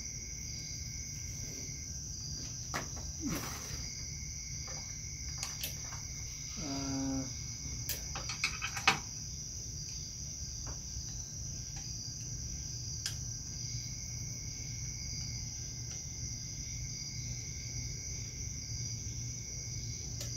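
Steady high-pitched insect chirring, typical of crickets, with a low hum beneath. A scatter of sharp clicks and clinks falls in the first half, the loudest about nine seconds in.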